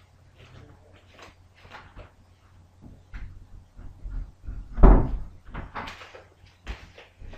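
Scattered light knocks and clicks, with one heavy thump about five seconds in.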